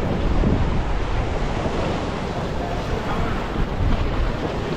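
Ocean swell washing and breaking against a rock ledge, with wind buffeting the microphone.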